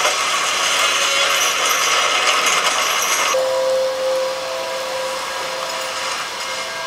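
Heavy iron gate being winched open on the TV soundtrack, a loud dense grinding and clanking of chains and gears. About three and a half seconds in it gives way to a quieter hiss with a single steady held tone.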